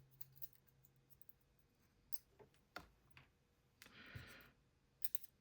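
Faint, scattered small metal clicks from the ASSA 600 lock's parts as its driver pins are taken out one at a time, with a brief soft rustle about four seconds in.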